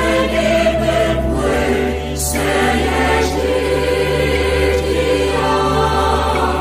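Mixed choir of men's and women's voices singing a gospel song in Twi in harmony, over a steady low bass underneath.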